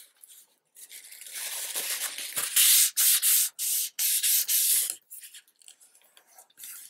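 A wadded paper towel rubbed firmly over paper freshly glued onto a notebook cover, a dry scratchy rubbing in strokes, loudest in about four strokes in the middle and fading to light rubbing near the end. It is the paper being smoothed down and the tacky glue pushed out to the edges so the paper sticks flat.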